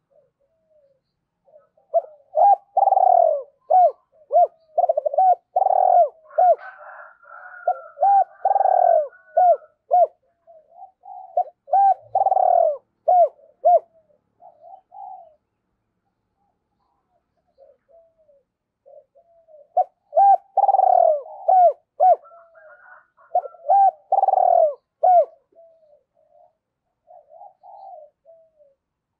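Spotted dove cooing in two bouts of rapid, repeated coo notes. The first bout starts about two seconds in and runs about ten seconds. The second starts about twenty seconds in and is shorter.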